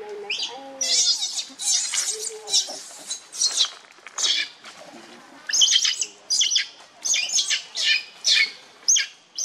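Young macaques giving a rapid series of shrill, high-pitched squealing calls, short rising cries repeated every fraction of a second, with a few lower sliding coos near the start.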